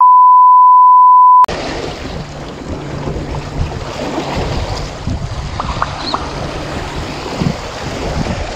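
A steady 1 kHz censor bleep for about a second and a half, then sea water washing against the rocks of a breakwater, with wind on the microphone.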